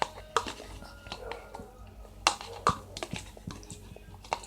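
Eating utensil clicking against a cup of macaroni and cheese while eating, a string of sharp irregular clicks.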